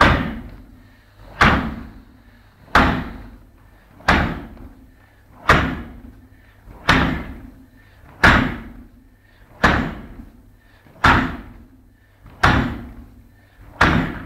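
Karate shin-conditioning kicks: the shin strikes a target with a hard thud about every one and a half seconds, each thud trailing off in a ringing tail, about eleven strikes at an even pace.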